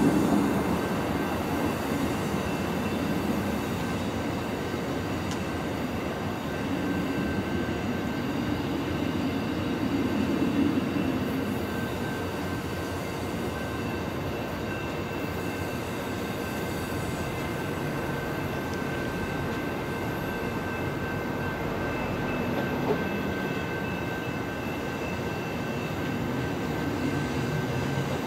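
Train rolling along the track: a steady noise of railcars on the rails, with a thin high whine held over it.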